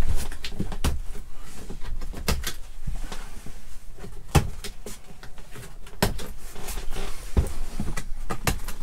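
Irregular clicks and knocks from a motorhome cab floor carpet being worked free of its press-stud poppers by hand.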